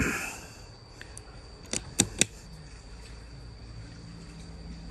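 Three sharp clicks in quick succession, about a quarter second apart, roughly two seconds in.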